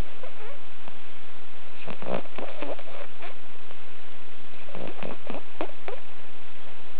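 A pug snoring in deep sleep: two snoring breaths about three seconds apart, each a quick rattling run of several short snorts.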